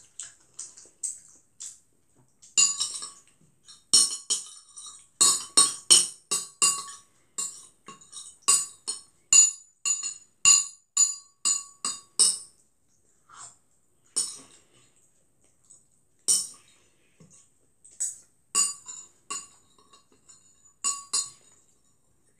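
Metal utensil clinking and scraping on a ceramic plate, a rapid run of ringing taps that thins out after about twelve seconds and picks up again near the end, as the last bits of noodles are chased around the plate.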